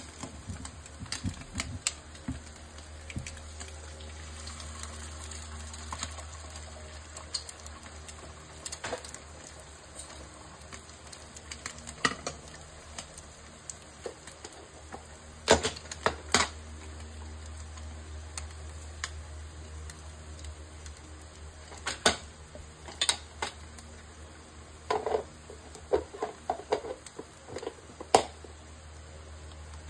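Eggs and meat slices frying in a nonstick pan: a steady sizzle with irregular crackles and pops, several louder pops scattered through and a cluster of them near the end. A low steady hum runs underneath.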